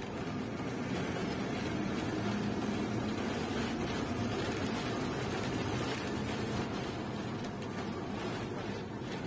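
SBSTC express bus under way, its engine and road noise making a steady rumble with a faint low hum.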